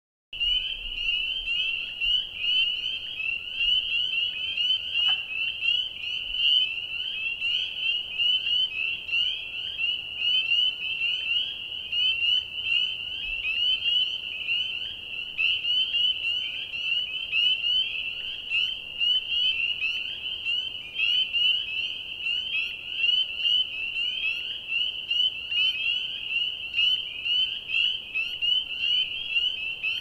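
Chorus of spring peepers: many frogs calling at once, a dense, unbroken stream of short, high, upward-sliding peeps that overlap into a jingling sound.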